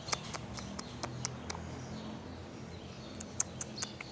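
Irregular, sharp clicks of a small dog's claws on a tiled floor as it walks, over a low steady hum.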